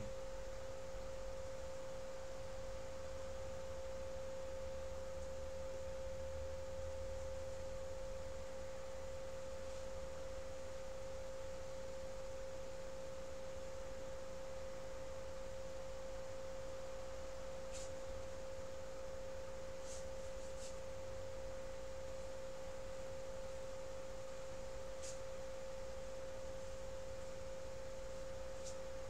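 A steady single-pitched electrical hum that holds without change, over a faint low rumble. A few faint ticks come in the second half.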